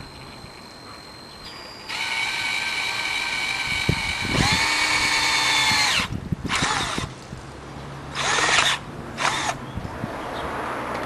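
Power drill boring a hole in a car's exterior door handle. The motor whines steadily, jumps higher in pitch for a couple of seconds, winds down, then runs in three or four short bursts.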